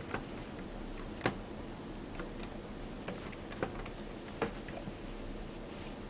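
Computer keyboard being typed on: irregular, scattered keystroke clicks as a short line of code is entered, a few of them sharper than the rest.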